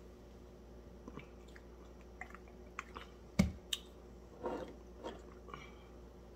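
Soft close-up chewing of breaded fried fish, with scattered small mouth clicks and one sharper knock about three and a half seconds in.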